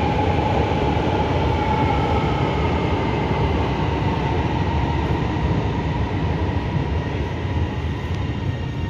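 Lahore Orange Line metro train pulling into the station behind the platform screen doors: a continuous rumble with a faint whine, easing off slightly as it slows.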